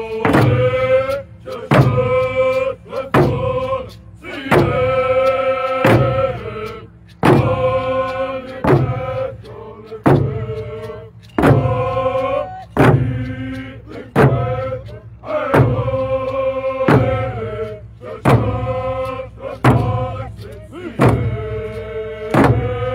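A group singing a chant in unison, in repeated phrases, while beating hand-held frame drums in a steady beat.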